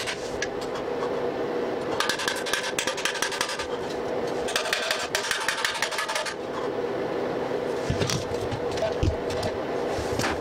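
Gloved hands scraping and clattering among small scrap metal parts on a concrete floor, in two rough stretches of a second or two each, with a few scattered knocks, over a steady hum.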